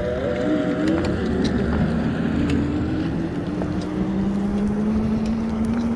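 Wind and road noise from riding an electric fat-tire bike, a steady rumble with a thin tone that rises slowly near the end, cutting off suddenly.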